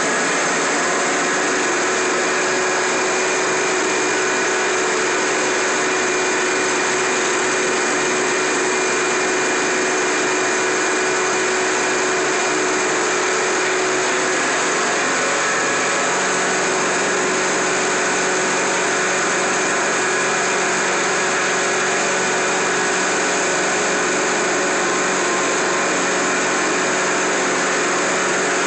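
Rotary jet extraction carpet cleaner running continuously over carpet: a steady loud hiss and whine from the suction and the spinning head, with a constant hum beneath.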